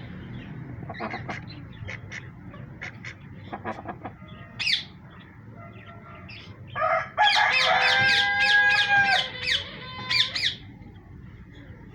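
Poultry calling: scattered short calls, then a loud burst of rapid, repeated calls from about seven to ten and a half seconds in.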